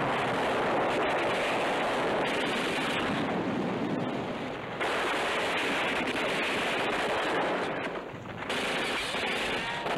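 Battle sound effects: dense, continuous noise of explosions and gunfire running together, dipping briefly about halfway through and again near the end.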